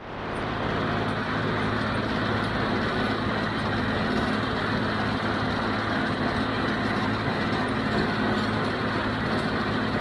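John Deere 5055D tractor's three-cylinder diesel running steadily under PTO load, driving a John Deere 348 small square baler as it picks up and bales hay.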